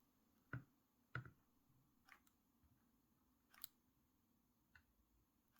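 A few faint, isolated clicks and light taps, about five in all, from hot-glue work: the glue gun and the parts being handled.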